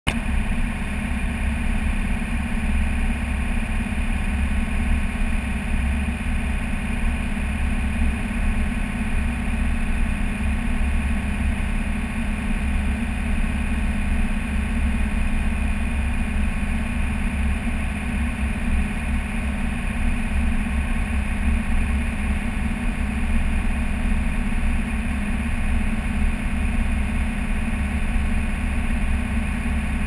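Unimog driving steadily at about 60 km/h: its engine and drivetrain run at a constant drone with tyre noise on the snowy road. The sound holds steady throughout, with no change of speed or gear.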